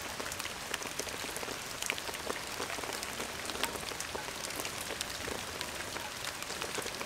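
Typhoon rain falling steadily and dripping from the edge of a corrugated plastic roof and shade netting: a constant hiss dotted with many small, sharp drop impacts.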